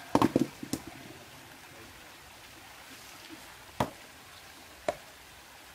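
Several sharp knocks in quick succession in the first second, then two single knocks about a second apart near the end, over the steady sound of a flowing stream.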